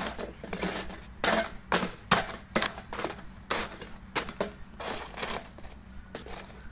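Hot charcoal briquettes crackling and clinking: an irregular run of sharp crackles and crunches, about three a second.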